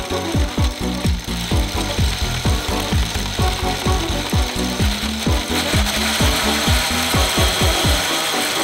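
A 3D-printed plastic gear train, motor-driven, grinding with rapid, uneven clicking, several clicks a second, over a steady whine. The clicking comes from a loose gear connection whose teeth skip under load.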